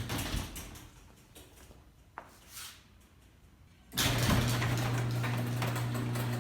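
Steady electric hum of a garage door opener's motor. It fades away in the first second and gives way to a quiet stretch with a single sharp click about two seconds in. The hum starts again abruptly about four seconds in and keeps running.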